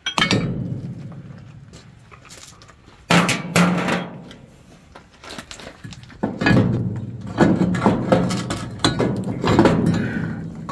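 Impact wrench hammering in three bursts, loosening the bolts of a cracked front leaf-spring bracket. There is one burst right at the start, a short one about three seconds in, and a longer one from about six and a half seconds to near the end.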